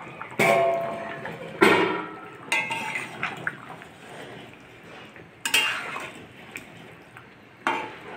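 Metal spatula clanking and scraping against a metal kadai while stirring a chicken curry: five sharp metallic clanks, each with a brief ring, the loudest about one and a half seconds in.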